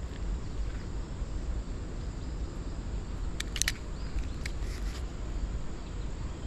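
Steady low rumble of outdoor background noise, with a quick cluster of short, high chirps about three and a half seconds in and one more a second later.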